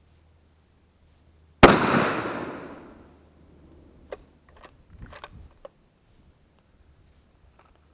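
A single rifle shot from a Howa 1500 bolt-action in 6.5 Creedmoor, about a second and a half in, with its echo dying away over the next second and a half. A few seconds later comes a quick run of metallic clicks as the bolt is worked to eject the spent case and chamber the next round.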